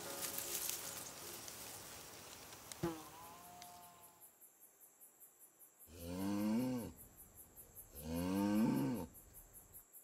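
Cattle mooing twice, each call about a second long, over crickets chirping in a steady high pulse.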